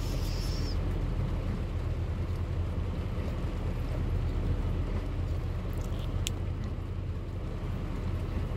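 Heavy truck's diesel engine droning steadily from inside the cab at low speed, over an even hiss of tyres on the wet road. A single sharp click comes about six seconds in.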